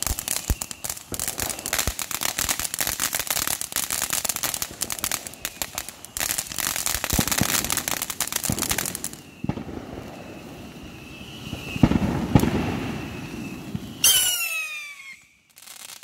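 Ground fountain fireworks spraying sparks, with dense crackling over a hiss for about nine seconds. Then a thinner, steadier hiss follows, with a short falling whistle near the end before the sound dies away.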